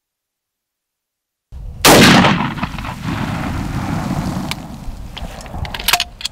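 A single gunshot about two seconds in, a deer hunter's shot, followed by a long low rumble of echo rolling on for several seconds. A few sharp clicks and knocks come near the end.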